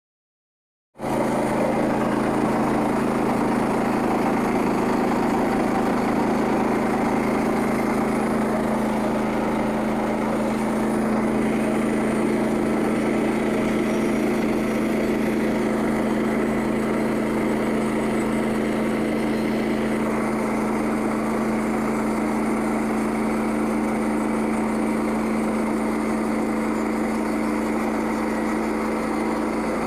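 Small gasoline engine running steadily at a constant speed, starting abruptly about a second in, most likely the engine of a Frontier OS27 portable bandsaw mill.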